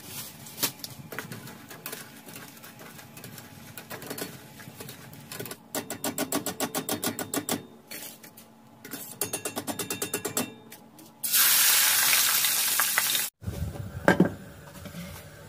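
Pieces of pita bread deep-frying in oil in a steel pot, sizzling, with clicks and scrapes of a wire skimmer and two bursts of fast regular ticking. A loud steady hiss for about two seconds near the end, then sharp metal knocks as a pot is set on the gas hob's grate.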